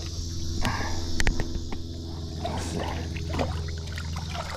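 Water splashing and trickling as a small shark, held by the tail, thrashes at the surface beside a boat and is released, over a steady low hum.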